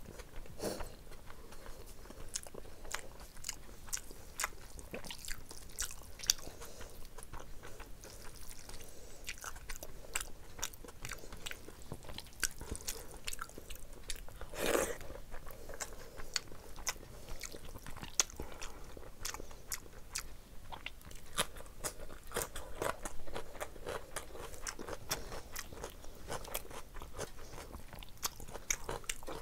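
Close-miked chewing and wet mouth smacking of someone eating rice and chicken curry by hand, in a steady run of sharp clicks, with one louder sound about halfway through.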